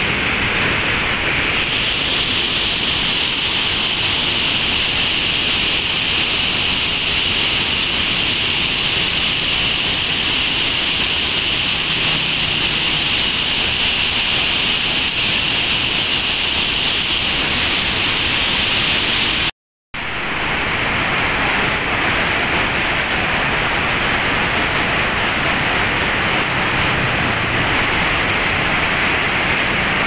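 River water rushing out under the open gates of a barrage and churning downstream: a loud, steady roar of falling, foaming water. It cuts out for a moment about two-thirds of the way through.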